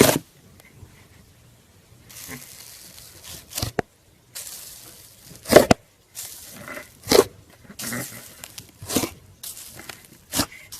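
Slime being squished and stretched by hand: crackly, sticky hissing broken by sharp pops roughly every one to two seconds, the loudest about halfway through.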